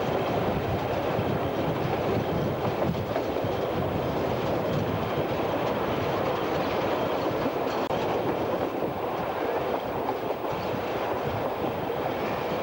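Steam-hauled passenger train running along, heard from an open carriage window: a steady rush of wheels on rails and wind.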